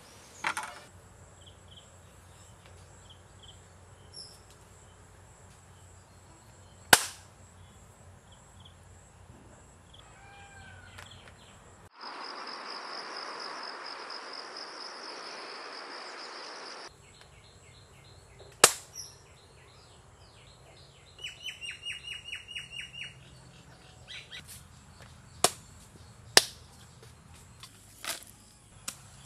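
Rural outdoor ambience with birds chirping, including a quick run of repeated chirps about two-thirds of the way in, and insects. Several sharp single knocks stand out above it. A steady hiss with a high whine runs for about five seconds in the middle.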